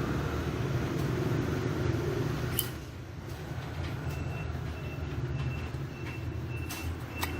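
Steady low rumble of road traffic, broken by a few sharp clicks, and from about halfway through a faint high tone that comes and goes.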